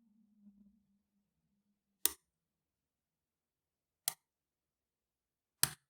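Three short sharp clicks about two seconds apart from a pick setting pins in an Abus 83/45 padlock's cylinder under tension.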